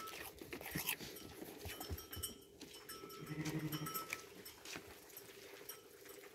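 A sheep bleats once, about three seconds in, a single call just under a second long, with faint scattered knocks and shuffling around it.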